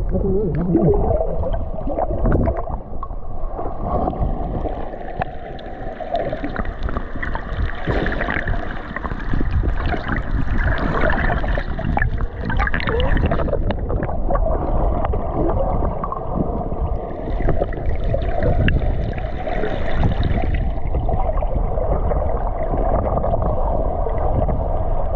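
Water gurgling and sloshing, with a continuous crackling rush and a low rumble.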